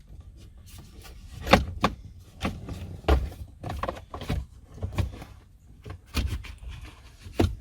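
Plastic dashboard trim being handled and fitted back around a car stereo, a string of irregular clicks and knocks, the sharpest about a second and a half in and another just before the end.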